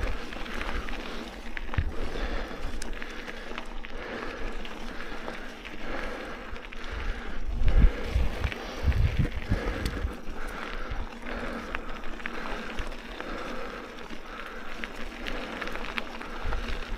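Mountain bike being ridden over a rough trail: steady tyre and riding noise with scattered clicks and rattles, and low rumbling surges that are loudest about eight seconds in.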